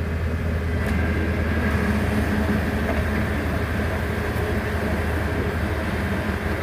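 Farm tractor engine running steadily under light load as it pulls a mounted onion planting implement across the field, a constant low hum.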